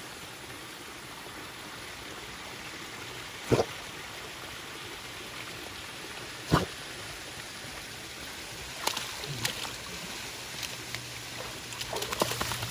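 Running creek water, with two sharp knocks a few seconds apart. Near the end comes a patter of splashes and drips as a wet Labrador retriever climbs out of the water onto the rocks.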